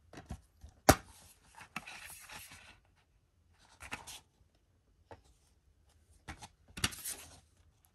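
Black plastic DVD case being handled: a sharp snap about a second in as the case is opened, a short scraping rustle, scattered clicks of the plastic, and a second louder snap and scrape near the end as the case is shut.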